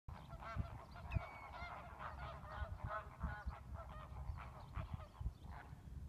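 A large flock of waterbirds calling, many short calls overlapping in a constant chorus. A low rumble of wind runs on the microphone underneath.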